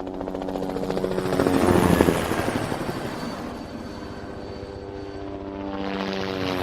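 Helicopter flying past: a rapid, even rotor-blade chop over the whine of its turbine. It grows loudest about two seconds in, then fades, and swells again near the end as it comes back toward the listener.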